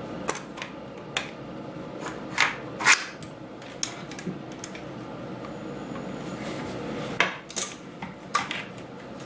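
Scattered sharp metal clicks and clinks, loudest about three seconds in and again near the end: a surplus AK-47 cleaning kit being taken out of the rifle's buttstock and handled.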